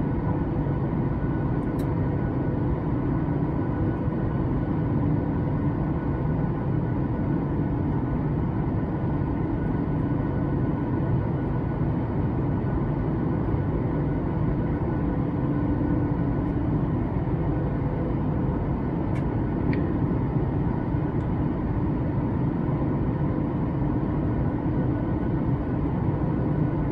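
Steady cabin drone of a Boeing 737 MAX 8 in flight: its CFM LEAP-1B engines and the airflow make a constant low rumble with a few steady tones in it. A couple of faint clicks come in, about two seconds in and again near the middle.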